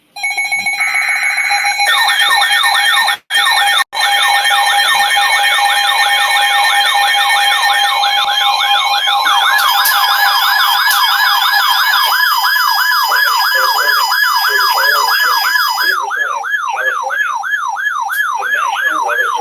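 Several electronic alert tones sounding at once: a fast wailing siren-like sweep repeating about two to three times a second over steady beeping tones. The sound cuts out briefly twice, about three and four seconds in.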